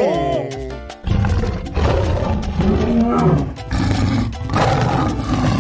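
Background music with loud, rough roaring sound effects, like a big animal's roar, coming in several bursts. At the start there is a short effect falling in pitch.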